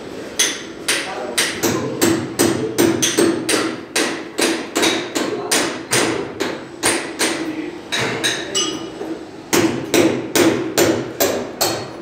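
Hammer striking repeatedly, about two to three blows a second, with a short break a little past two-thirds of the way in before the blows resume. Some blows leave a brief ringing tone, over a steady background hum.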